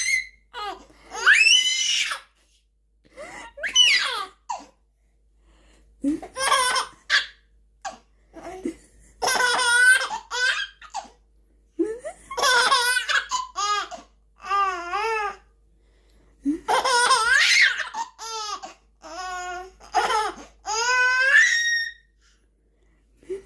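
A 3–4-month-old baby laughing: about a dozen high-pitched bursts of belly laughter and squeals with wavering pitch, each a second or so long, with short breaths between.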